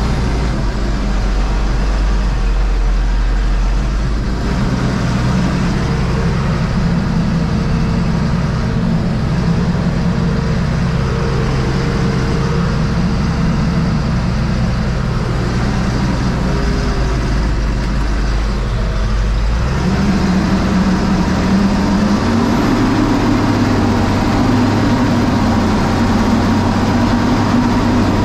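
Fendt 926 Vario tractor's six-cylinder diesel engine running steadily, heard from inside the cab; about two-thirds of the way through its note shifts and settles a little higher.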